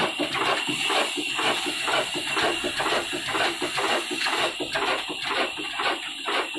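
Old Ruston Hornsby diesel engine running with an even beat of about three to four strokes a second, with a steady high whine over it.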